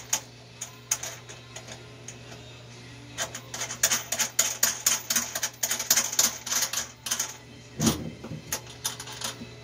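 Quick, irregular clicking and rattling of small metal parts being worked into place by hand under a truck's dashboard, densest in the middle, over a steady low hum.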